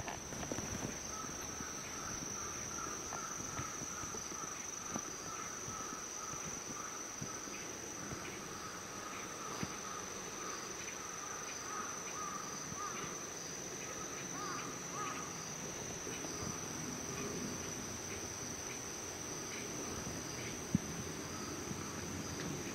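Insects chirring outdoors: a steady high-pitched drone throughout, with a lower pulsing call for about the first fifteen seconds, and scattered light clicks.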